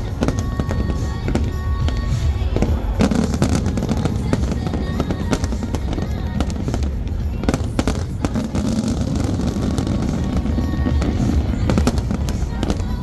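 Aerial fireworks going off in quick succession: many sharp cracks and bangs over a continuous deep rumble of booms, with music playing underneath.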